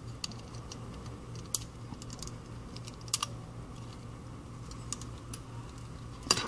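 Light, scattered clicks and taps of a small precision screwdriver and tools on an iPhone 5c's internal metal EMF shield plate as its last screws are taken out, with a louder cluster of clicks near the end. A low steady hum runs underneath.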